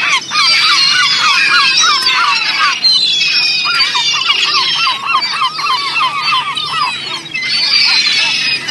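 A large flock of birds crowding in to be fed, calling over one another in many short squawks that rise and fall in pitch, with no break.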